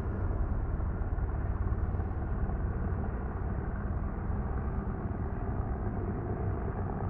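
Helicopter running with a steady low drone.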